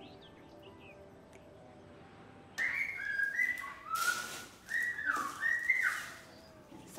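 A person whistling a few sliding notes, starting suddenly about two and a half seconds in, along with rustling and light knocks of bamboo-and-mesh food covers being handled.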